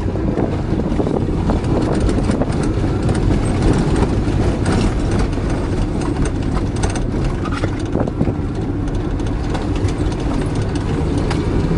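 Car engine revving high in first gear while the car drives at speed, heard from inside the cabin as a steady, loud engine noise. This is the engine over-revving in too low a gear, which the driver says means high RPM and calls for a shift to second.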